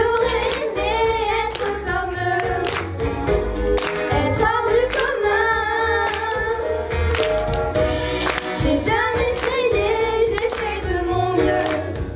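Three girls singing together into handheld microphones, over accompaniment with a steady drum beat and bass.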